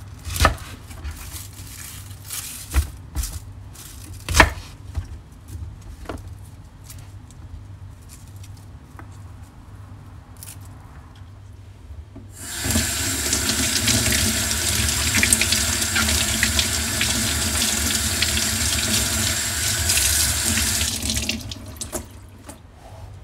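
A few sharp, irregular knocks of a chef's knife trimming celery on a wooden cutting board. About halfway through, a kitchen tap starts running into a stainless steel sink as celery stalks are rinsed under it: a steady rush of water that stops shortly before the end.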